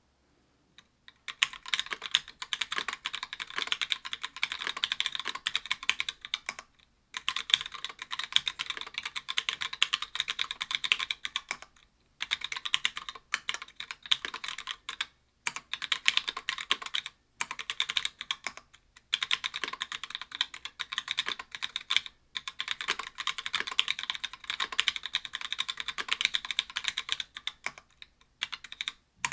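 Typing on an Octagon V3 mechanical keyboard with stock Gateron Yellow linear switches (60 g), an aluminium plate, GMK keycaps and lubed stabilisers: a dense run of keystrokes starting about a second in, broken by short pauses every few seconds.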